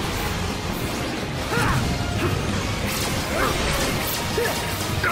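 Anime battle sound effects: a dense, continuous wash of crashes and whooshes with short bending, ringing tones scattered through it, over background music.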